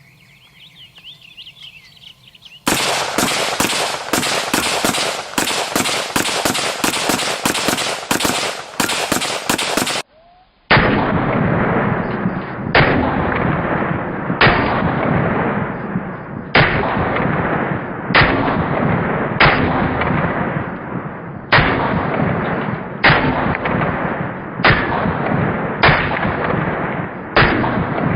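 Rifle shots from the AK-47 and AR-15 being fired into a car. A quick string of shots runs for about seven seconds from near three seconds in. After a brief break, single shots come about every second and a half, each with a short ringing tail, until the end.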